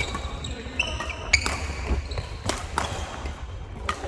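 Badminton rally: sharp racket strikes on the shuttlecock roughly once a second, with court shoes squeaking on the floor between the hits.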